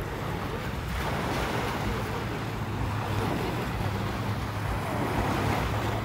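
Strong sea waves washing onto the beach in a steady rush of surf, with wind rumbling on the microphone.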